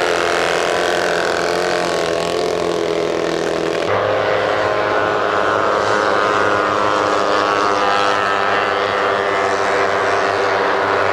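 Racing outboard engines on hydroplanes running at speed: a loud, steady, high-pitched engine note with many overtones. About four seconds in the note changes abruptly to a different engine's pitch.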